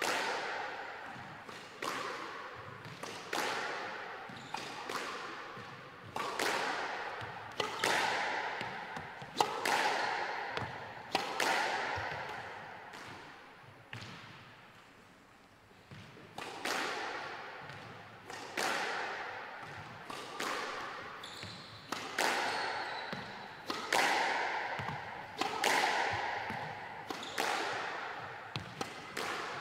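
Squash ball hit back and forth by two rackets during the pre-match warm-up: a string of sharp cracks from racket and front wall, each ringing on in the court's echo, about one every one to two seconds, with a short lull near the middle.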